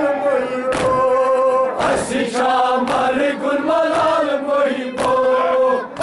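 A group of men chanting a Kashmiri noha, a Shia lament, in unison in long held lines. Sharp slaps of hands striking chests (matam) fall about once a second.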